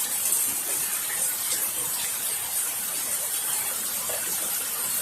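Steady rain falling, an even hiss with faint scattered patters.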